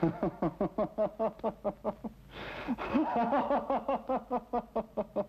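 A man laughing heartily, a long run of rapid 'ha-ha' pulses about five a second, pausing for a breath about two seconds in before laughing on.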